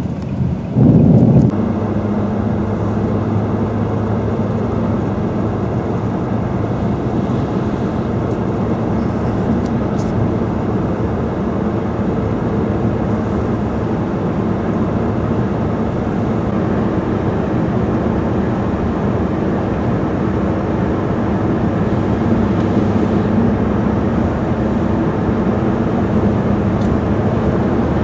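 A car being driven along a highway, heard from inside the cabin: a steady hum of engine and road noise.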